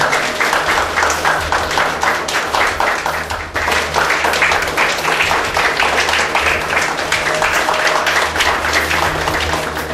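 Audience applauding: a roomful of people clapping steadily, with a brief dip about three and a half seconds in.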